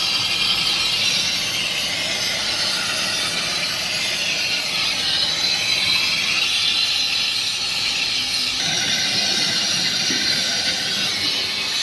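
Welding arc hissing steadily, with a slight change in its sound about two-thirds of the way through.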